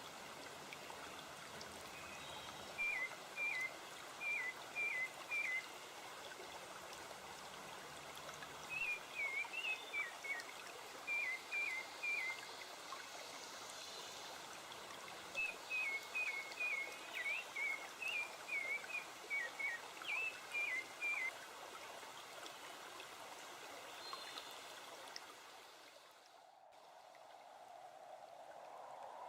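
Steady running water of a stream, with a bird calling in quick groups of three or four short chirps. Near the end the water and bird sounds drop away, and a different, lower rushing sound fades in.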